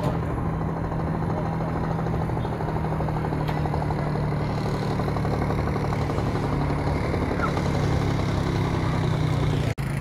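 Supermodified race car's engine idling with a steady, choppy beat. The sound drops out sharply for a moment near the end.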